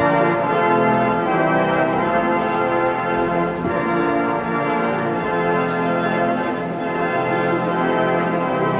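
Church organ playing held chords, changing every second or so.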